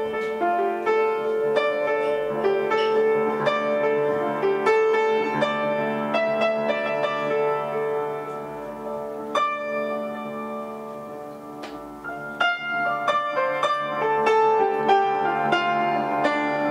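Upright piano playing improvised-sounding runs and chords over long low notes held on a bowed string instrument. In the first few seconds a bowed line wavers with vibrato. About two-thirds of the way through the music thins out, then the piano comes back in with quick notes.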